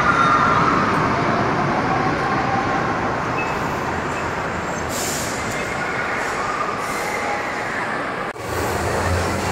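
Indoor roller coaster train running along its steel track, a steady rushing noise of the wheels on the rails. The sound drops out suddenly for a moment near the end, then returns.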